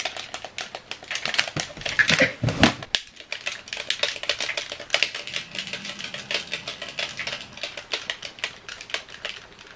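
Rapid, irregular clicking of buttons being pressed on a handheld video game controller.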